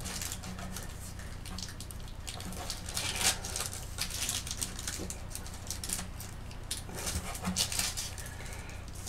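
Short, irregular scratchy handling noises, like tools being shifted on a desk, over a steady low electrical hum.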